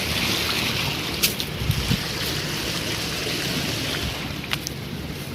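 Waterfall: a steady rush of falling water, broken by a few brief sharp clicks.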